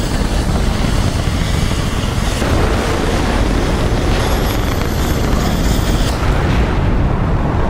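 F/A-18 Super Hornet's twin jet engines in full afterburner for a carrier catapult launch: a loud, steady roar, with a thin high whine climbing in pitch about halfway through.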